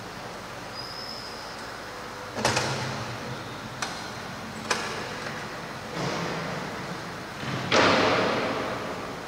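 A few knocks and bangs echoing in a large church: a heavy thump about a quarter of the way in, two lighter sharp clicks after it, a softer knock, and the loudest bang near the end, each heavy one trailing off in a long echo.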